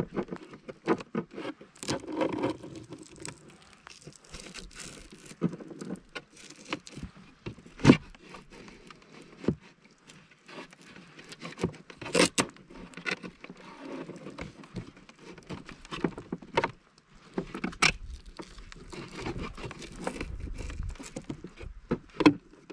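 Irregular handling noises: sharp clicks and knocks scattered throughout, with scraping and rustling between them and no motor running.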